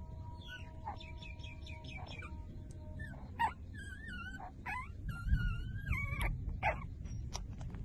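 Five-day-old newborn puppies squeaking and whimpering while nursing. A quick run of short high squeaks comes in the first couple of seconds, then longer wavering whines about midway.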